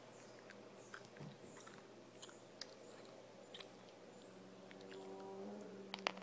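Faint scattered clicks and light taps of small toy baking pieces being handled, over a very quiet room with a faint steady hum that swells slightly near the end.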